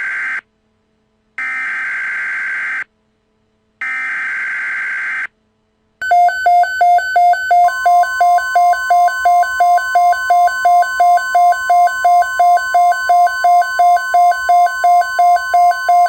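Emergency Alert System tones: three bursts of SAME header data, a harsh digital screech about a second and a half each with short gaps between, then a loud pulsing alarm beeping about three times a second, joined about two seconds later by a steady high tone like the NOAA Weather Radio warning tone.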